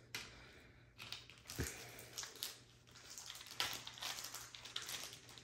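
Faint crinkling of small plastic bags and light taps as diamond-painting tools are handled and set down, with one soft bump about one and a half seconds in.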